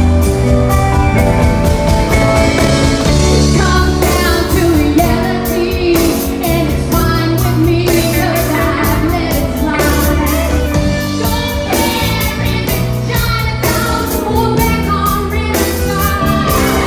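Live band playing with a woman singing lead, backed by drum kit and electric guitar.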